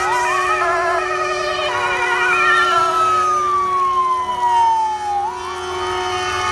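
Several emergency vehicle sirens sounding at once as convoy vehicles pass, including a police car and an ambulance: warbling yelps, and a long wail falling in pitch from about two and a half to five seconds in. A steady lower tone runs underneath.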